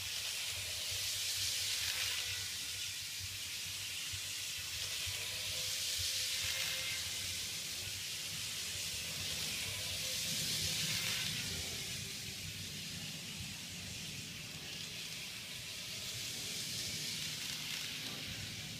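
KATO Unitrack model train running around the track, a steady hiss of wheels and motor with a low rattling rumble, swelling and fading about four times as it circles past.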